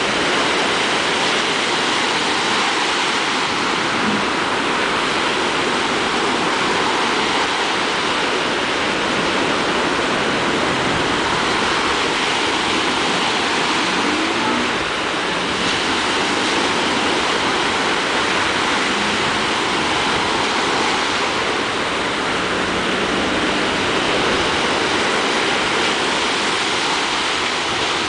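Ocean surf breaking on a beach: a steady wash of waves with no pause.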